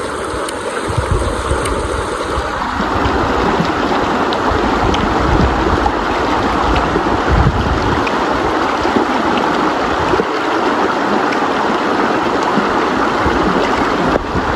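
River water rushing steadily, with uneven low gusts of wind on the microphone.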